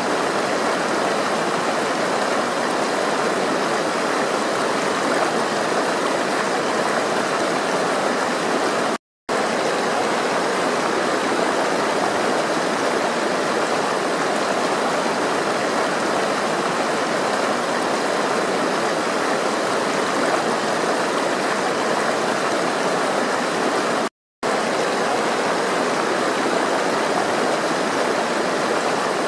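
Flowing water rushing steadily, an even rushing sound that drops out to silence for a split second twice.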